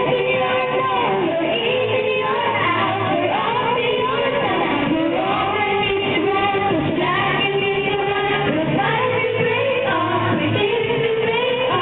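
Young girls' voices singing a pop song into handheld microphones over a pop backing track.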